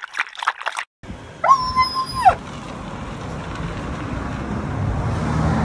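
French bulldog puppy giving one high whine just under a second long, level in pitch with a rising start and a falling end, over steady traffic noise from the road.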